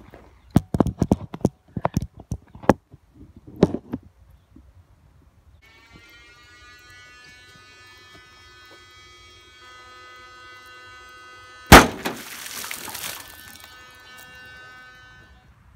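A plastic bottle with a leaking CO2 cartridge inside bursts underwater in a metal wheelbarrow full of water. It gives one sharp, loud bang about twelve seconds in, followed by a second or so of churning, splashing water. A run of sharp knocks comes in the first four seconds, and a steady droning tone with many overtones sounds through the second half.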